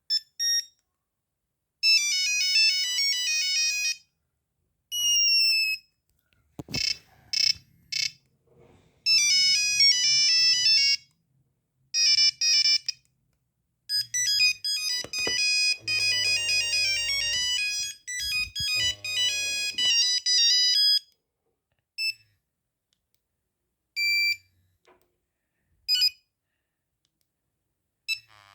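Nokia 3310 mobile phone playing several monophonic ringtone melodies in turn: quick runs of electronic beeping notes, one note at a time, with short pauses between tunes. Near the end come single short beeps about two seconds apart.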